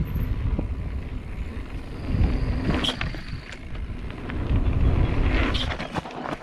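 Mountain bike riding down a dirt drop: wind rumbling on the microphone and tyres running over dirt, with sharp knocks and rattles from the bike about halfway through and near the end.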